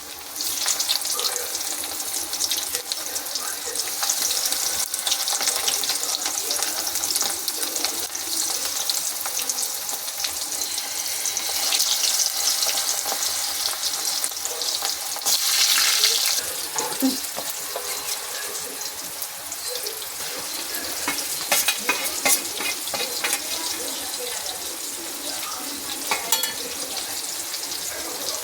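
Stuffed karela (bitter gourds) sizzling as they fry in hot oil in a pan, with scattered clicks and scrapes of a utensil stirring and turning them. The sizzle swells louder twice around the middle.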